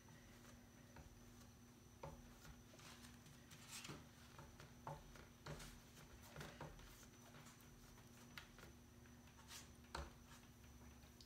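Near silence: faint strokes of a flat paintbrush blending paint on a pumpkin cutout, soft irregular rubbing with light taps, over a faint steady room hum.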